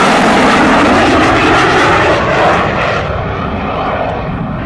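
Saab JAS 39 Gripen fighter's Volvo RM12 turbofan: loud jet noise from a display pass, which fades slightly and turns duller as its high hiss drops away about three seconds in.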